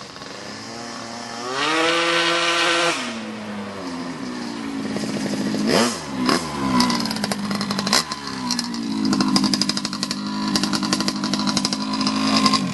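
Modified Honda Dio two-stroke scooter engine revving hard as it rides around, with a high rev about two seconds in, quick up-and-down swoops in pitch around the middle and a long rev near the end; the exhaust is loud and raspy.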